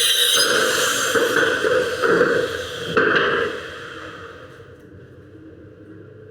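Handheld electric power tool running loudly on wood, with a sharp knock about three seconds in, then winding down and going quiet about four seconds in.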